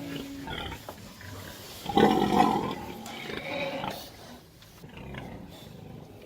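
Pigs squealing, with one loud call about two seconds in and weaker calls after it.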